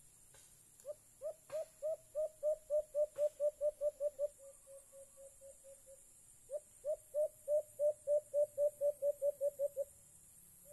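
Alimokon dove cooing: a long series of rapid, evenly repeated low hoots, about four or five a second, that fades into softer notes, then a second loud series a little later.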